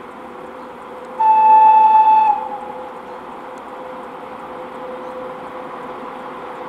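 VL80K electric locomotive sounding its horn in one blast of about a second, dipping slightly in pitch as it cuts off. Underneath is the steady, slowly growing running noise of the approaching freight train.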